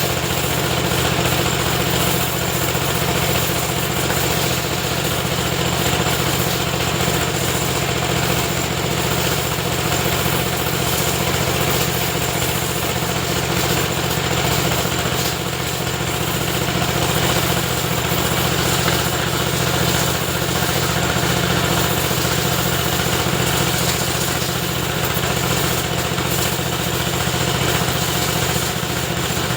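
Motorcycle-wash pressure washer running steadily, its motor and pump humming under an even hiss of spray.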